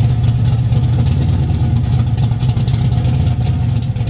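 1968 Dodge Charger's engine idling loud and steady through its exhaust.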